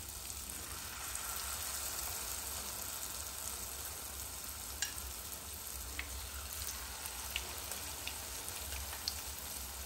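Besan-battered potato slices frying in hot oil in a kadhai: a steady sizzling hiss with a few scattered small pops, as more slices are slipped into the oil.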